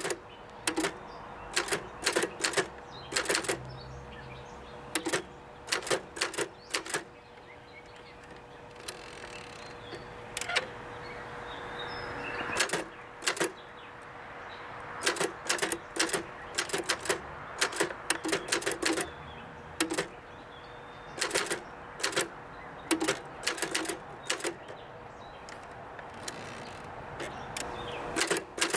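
1958 Adler Universal manual typewriter being typed on: sharp keystroke clacks in quick uneven runs, broken by short pauses, with a longer pause about eight seconds in.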